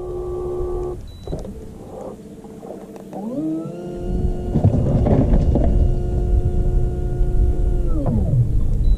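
Bow-mounted electric trolling motor whining: a steady tone that cuts off about a second in, then a second run that rises in pitch just after three seconds, holds steady for about five seconds and winds down near the end, with a low rumble underneath.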